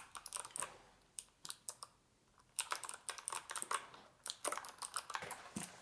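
Keystrokes on a custom mechanical keyboard: a quick flurry of clicks, a pause of about a second and a half, then a steady run of typing.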